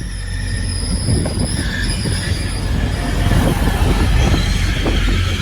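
Grand Central Class 180 diesel multiple unit pulling into the platform. High steady squeals from its brakes sound over the rumble of the train, which grows louder about three seconds in as it comes alongside.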